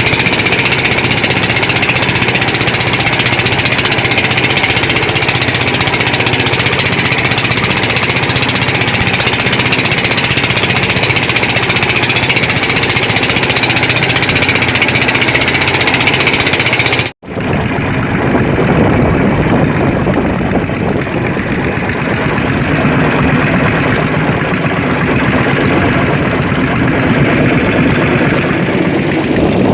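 A fishing boat's engine running steadily. About two-thirds of the way through it cuts off abruptly, then comes back duller and lower in pitch.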